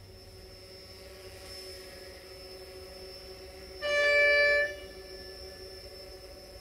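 One short blast of a narrow-gauge train's horn, under a second long, about halfway through, over a steady faint background hum.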